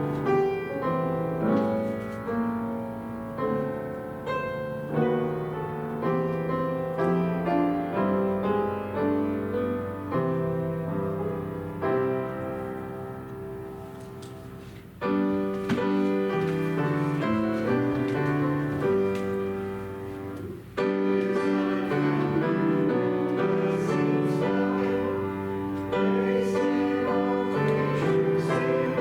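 Piano playing offertory music in a slow, hymn-like style. About halfway through, the sound turns fuller and sustained, then steps louder again a few seconds later.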